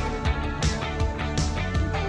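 Background music: a rock-style track with guitar and a steady drum beat.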